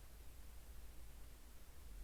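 Near silence: room tone, a faint steady hiss with a low rumble underneath.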